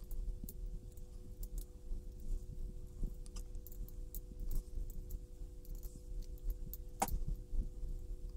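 Small plastic parts and a screwdriver being handled: irregular light clicks and scrapes as a small screw is driven into a 3D-printed plastic case, with one sharper click about seven seconds in. A faint steady hum runs underneath.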